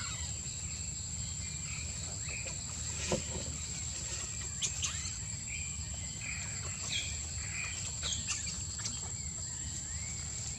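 Outdoor insect drone, a steady high thin whine, with scattered short bird-like chirps and a few sharp clicks over a low steady rumble; the whine stops suddenly at the very end.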